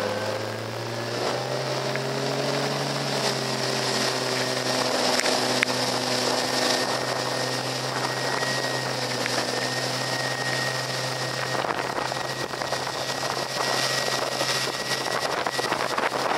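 80 HP Suzuki four-stroke outboard motor throttling up, its pitch rising over the first few seconds, then running steadily at speed over the rush of water along the hull. A thin high whine joins in from about six seconds in.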